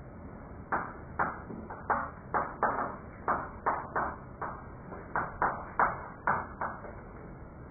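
Chalk writing on a blackboard: a quick, uneven series of sharp taps and short scrapes, about three strokes a second.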